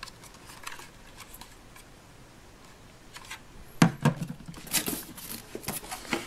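A clear plastic bag of small plastic toy tools rustling and its pieces lightly clicking as it is handled, with a single knock about four seconds in, then busier crinkling of plastic until the end.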